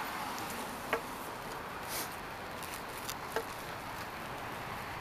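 Steady roadside background hiss with two brief clicks, about a second in and again some two and a half seconds later.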